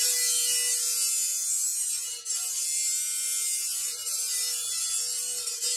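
Bench-mounted electric cutting disc sawing through a block of onyx marble: a loud, high-pitched grinding hiss over a steady motor hum. It drops briefly about two seconds in, then picks up again.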